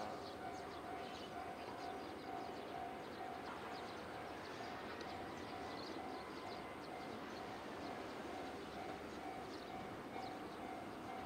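Railway level-crossing warning bell ringing in a steady pulse, about two rings a second, over a steady low hiss.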